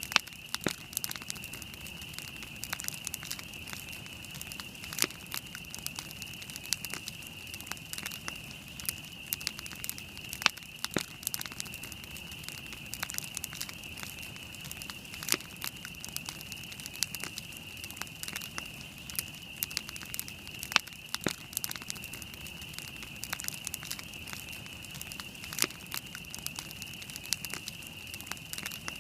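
Wood campfire burning, with irregular crackles and sharp pops, a few of them much louder than the rest, over a steady high hiss.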